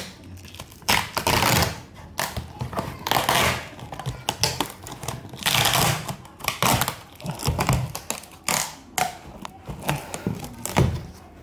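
Packing tape and cardboard being torn open on a box, ripping and scraping in irregular bursts with a few taps and thuds.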